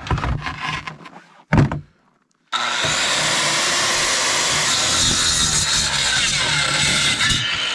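A corded circular saw starts up about two and a half seconds in and cuts through frozen moose ribs, meat and bone, with a loud, steady grinding whine. Near the end the high hiss drops away while the saw keeps running. Before it starts there are small handling knocks and one thump.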